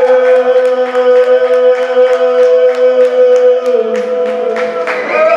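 Folk metal band playing live: a long held sung note over guitars, with steady drum hits. The held notes step down in pitch near the end.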